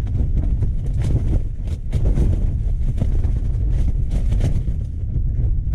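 Strong gusting wind buffeting a tent, heard from inside: a heavy rumble with the fabric flapping and snapping over and over.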